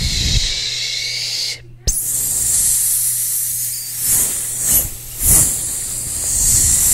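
A person's mouth making long, drawn-out hissing 'sss' sounds right up against a microphone for ASMR: one hiss of almost two seconds, a brief break, then a longer one that swells a few times, with a low steady hum underneath.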